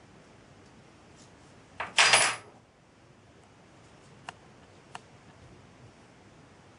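Two small steel spanners put down with a brief metallic clatter about two seconds in. Then two light clicks as the small brass eccentric and its strap are handled.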